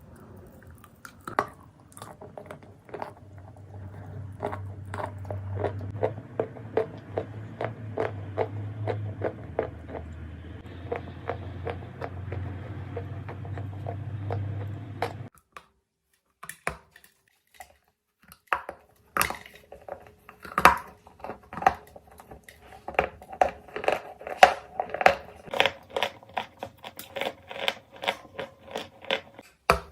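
Lumps of edible Turkestan clay being bitten and chewed close to the microphone: a quick run of crisp, dry crunches, several a second. The crunching cuts out about halfway through for a few seconds, then starts again, louder and sharper.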